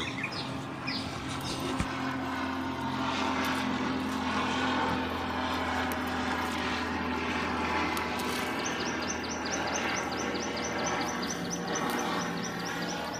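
A steady motor drone. About two-thirds of the way in, a fast, even run of short high chirps starts, about four a second.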